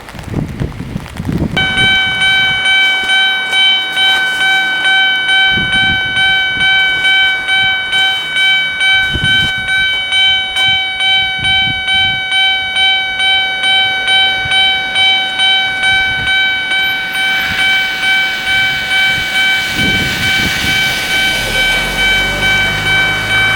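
Japanese railway level-crossing alarm starts ringing about a second and a half in, an electronic bell pulsing in a steady even beat. In the second half a train comes through the crossing with a rising rush of noise, and a low rumble sets in near the end.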